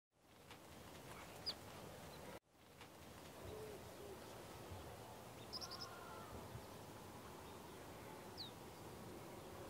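Faint outdoor ambience: a steady soft hiss of air with a few scattered bird chirps, high short calls heard three times and a low two-note call a few seconds in. The sound cuts out for an instant about two seconds in.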